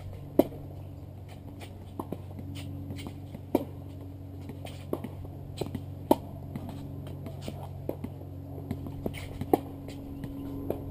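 Tennis ball struck by rackets in a baseline rally: four sharp pops about three seconds apart, with softer ticks between them, over a steady low hum.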